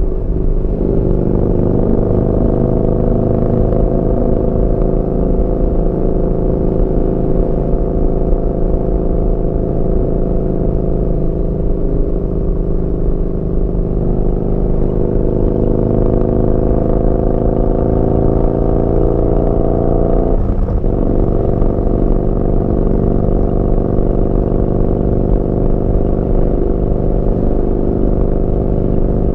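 Yamaha Bolt's air-cooled V-twin running through a Vance & Hines slip-on exhaust while riding. The engine pitch climbs slowly under steady acceleration, then drops sharply about two-thirds of the way through at an upshift, and the bike pulls on in the higher gear.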